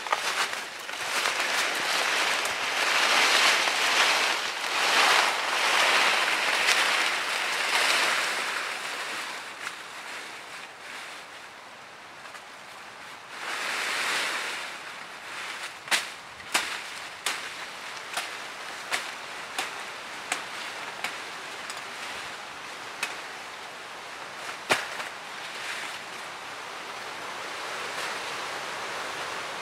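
Surging rustling noise that swells and fades over several seconds, then a run of sharp knocks, roughly one a second, from a little past halfway.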